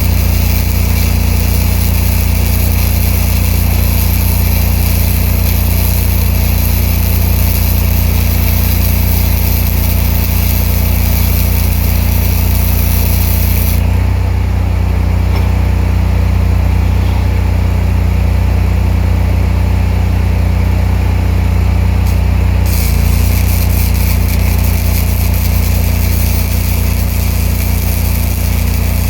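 Spool-gun MIG welding arc hissing and crackling over a steadily running engine. The arc stops about 14 seconds in and strikes again about 9 seconds later.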